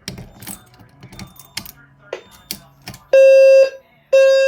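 Clicks and rattles, then about three seconds in a low-frequency fire alarm sounder, an EST Genesis, starts sounding a loud low buzzing tone. It sounds in half-second blasts about a second apart, the start of the temporal-three evacuation pattern.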